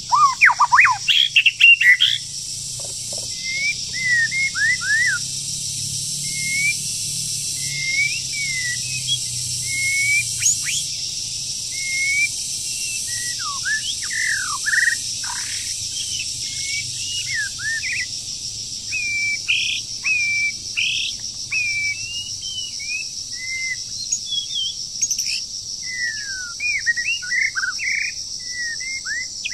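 Songbird singing a run of short whistled notes that sweep up and down, loudest and most crowded in the first couple of seconds, then coming in scattered phrases. A steady high insect drone runs underneath.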